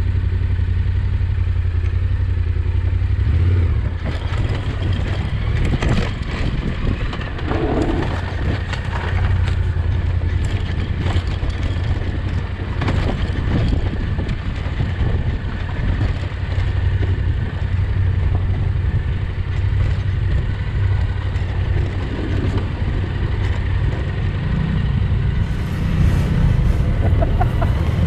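Yamaha Ténéré 700's 689 cc parallel-twin engine running steadily as the bike rides a rough dirt track, with scattered knocks and rattles from the bike jolting over the ground.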